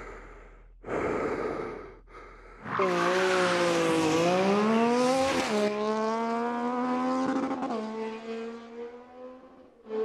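Stunt street bike's engine at high revs, its pitch dipping, climbing again and holding, then fading away as it goes.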